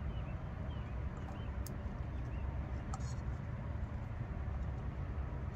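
Steady low rumble of outdoor background noise, with a few faint short chirps in the first second or so and a couple of small clicks.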